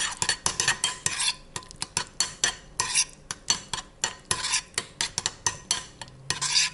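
Metal spoon stirring thick mayonnaise and pressed garlic in a ceramic bowl, clinking and scraping against the bowl about three or four times a second.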